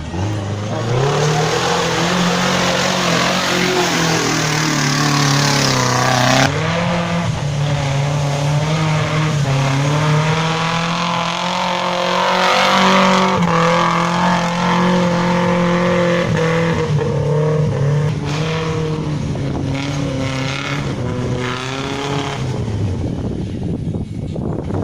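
Off-road 4x4 engine running hard and revving up and down under load, with a noisy rush over it; the sound changes abruptly about six seconds in.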